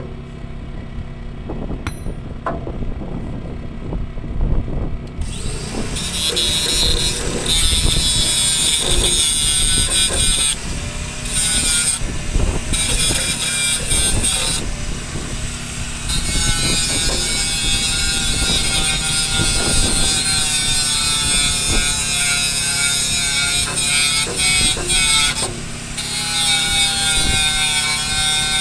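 Electric angle grinder grinding down the steel tip of a loader bucket shank. It starts about five seconds in and runs on with a few short breaks. A Predator portable generator runs steadily underneath.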